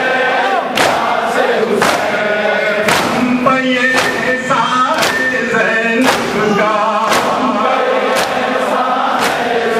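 A crowd of men chanting a noha together, with sharp slaps of hands striking chests in unison (matam) keeping a steady beat of about one per second.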